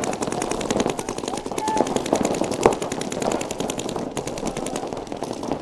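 Paintball markers firing rapid, evenly spaced strings of shots, overlapping streams of pops. A single louder, sharper pop comes a little under three seconds in.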